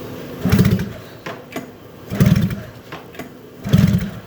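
Arctic Cat ZL440 two-stroke twin snowmobile engine pulled over by hand with the recoil starter three times, about a second and a half apart, each pull a short burst of rapid chuffing as it cranks without firing, pumping up a compression gauge.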